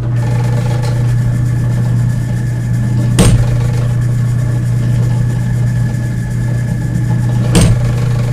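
Drill press motor running with a steady loud hum while drilling out the rivets of a slide potentiometer. Two sharp snaps cut through it, about three seconds in and again about four seconds later, as the bit works through the rivets.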